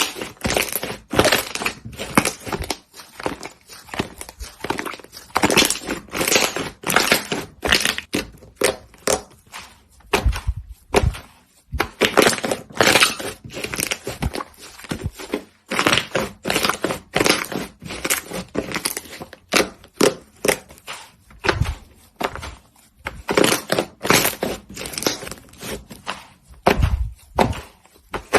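Slime squeezed and pressed by hand, giving a dense, irregular run of sticky clicks, crackles and squelches.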